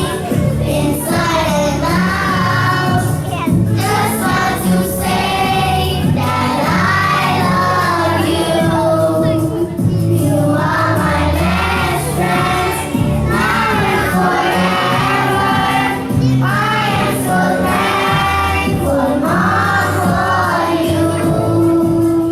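A song with several voices singing together over instrumental backing, running without a break.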